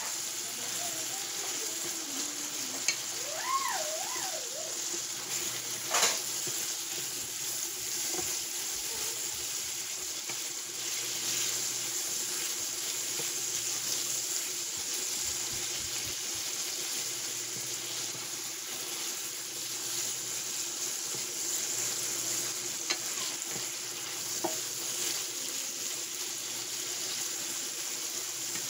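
Chicken and pork pieces sizzling steadily as they are sautéed in a frying pan. They are stirred now and then, with a few sharp knocks of the utensil against the pan, the loudest about six seconds in.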